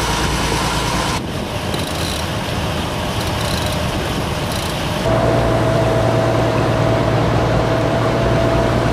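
Motorboat engine running steadily under wind and water noise. The sound changes abruptly about a second in and again about five seconds in, after which a steady engine hum comes to the front.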